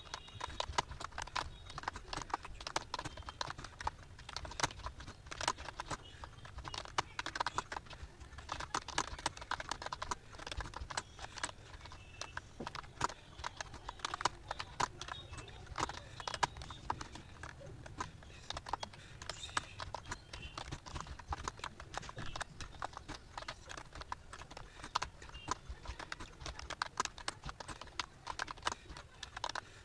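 Fast, continuous typing on a computer keyboard: a steady run of key clicks, several a second, with no real pauses.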